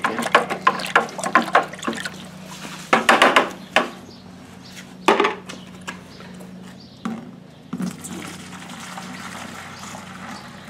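Water-based color wash being sloshed and splashed by hand in a plastic 5-gallon bucket: a quick run of splashes, then a few scattered louder splashes and knocks. Near the end, a steady pour of the liquid into a plastic watering can.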